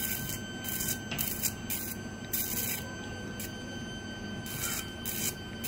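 Electrocautery unit giving its steady high activation tone while the fine cautery tip burns a lip granuloma, with a run of short, irregular hissing sizzles as the tissue is fulgurated.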